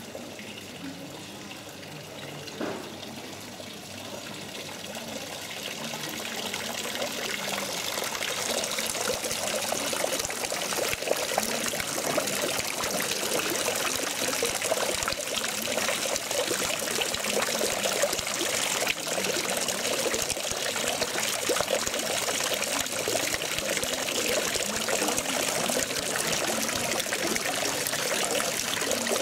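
Thin streams of water falling from the spouts of a wrought-iron fountain into the water of its stone basin, a steady splashing trickle that grows louder over the first several seconds and then holds.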